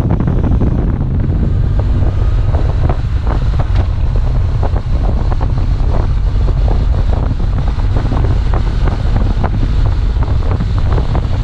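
Heavy wind noise on a helmet-mounted action camera's microphone from riding a motorcycle: a steady low rumble with frequent short crackles.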